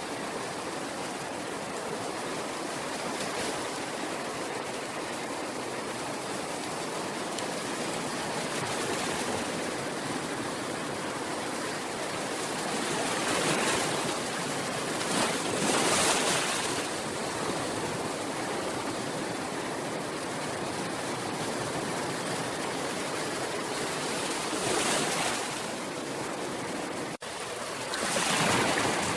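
Ocean waves washing onto a shore: a steady rush of surf that swells louder as waves break, most strongly about halfway through and again near the end, with a split-second dropout just before the last swell.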